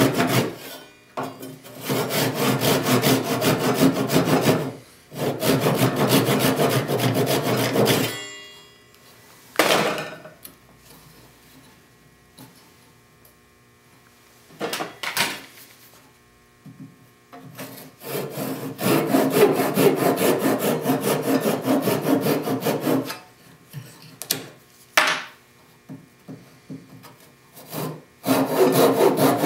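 Japanese pull saws (Gyokucho) cutting a tenon's cheeks and shoulder in sipo, African mahogany, in quick strokes. The sawing comes in several runs of a few seconds each, with pauses between that hold a few short knocks.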